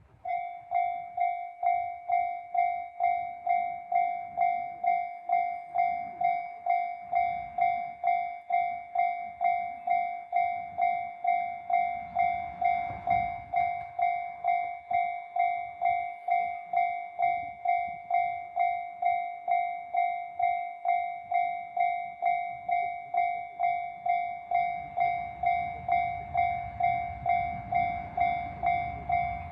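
Railway level-crossing warning bell in the JR standard electronic tone, ringing steadily at about two strikes a second. In the last few seconds a low rumble builds under it as the train approaches.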